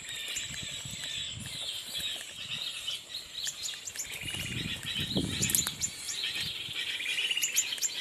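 Small birds chirping and twittering in a dense chorus, with sharper, higher chirps about halfway through and again near the end. Low rustling of people walking through grass and brush sounds beneath.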